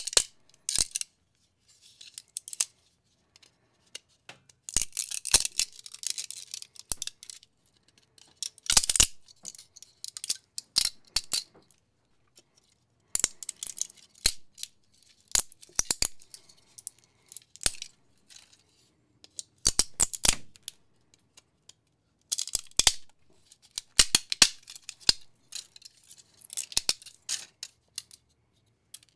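Flush cutters snipping through 3D-printed plastic support material and the supports snapping and crackling as they break away from the printed figure. The sound comes in irregular clusters of sharp clicks and crackles with short pauses between them.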